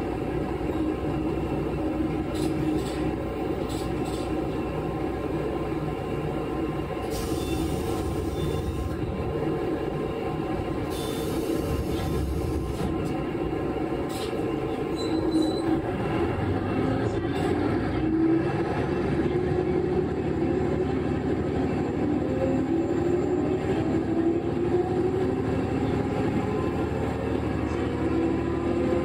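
KiHa 11 diesel railcar running, its engine note climbing steadily through the second half as it gathers speed. Two brief hisses come in the first half.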